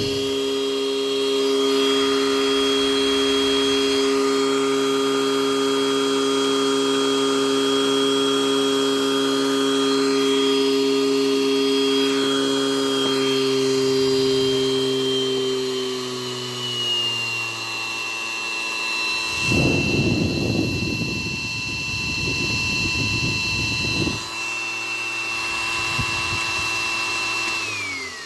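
Aircraft electric blower type 2D-7 running steadily with a high whine and a deep hum. About 16 seconds in its pitch eases down to a lower steady speed, two bursts of rushing noise come through around 20 and 23 seconds, and near the end the whine falls away quickly as the blower spins down.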